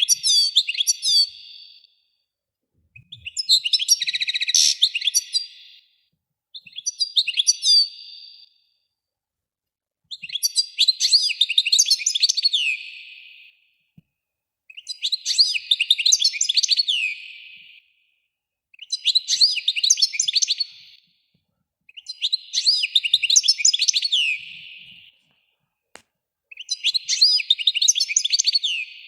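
A songbird singing a series of about eight phrases, each two to three seconds long, made of rapid high trills and sweeping notes, with short pauses between them.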